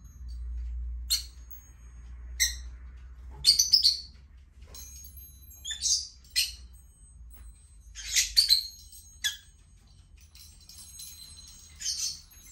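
Pet parakeets chirping: short, high-pitched calls every second or two, some coming in quick pairs.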